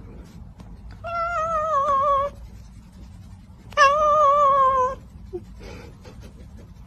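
Domestic cat meowing twice as its head is rubbed: two drawn-out meows, each a little over a second long, with a wavering, slightly falling pitch.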